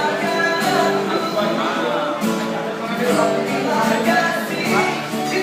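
Street busker singing a melodious song with instrumental accompaniment.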